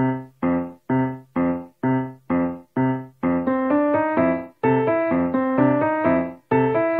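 Background music: one struck chord repeated about twice a second, joined by a melody line about three seconds in.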